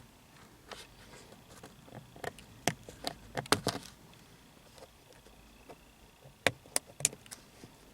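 Scissors snipping the shrunken vinyl strips of a sun-visor vanity-mirror mount: scattered short, sharp snips and clicks, bunched about three seconds in and again a few near the end.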